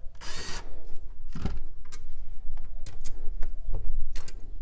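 A red Black & Decker 20V lithium cordless drill-driver spins briefly at the start as it runs off one of the fuel-pump cover nuts. After that come a string of small clicks and knocks, one louder and deeper about a second and a half in, as the loosened nuts and the plastic access cover are handled.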